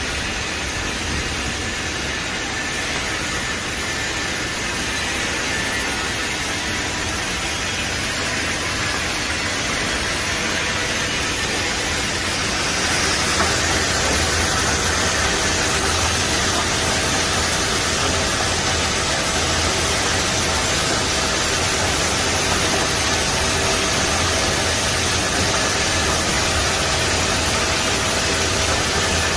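Takamaz X-15 CNC lathe running: a steady machine hum with hiss. About twelve seconds in it grows louder and hissier as the lathe turns a part under flood coolant spraying over the tool, with a steady whine on top.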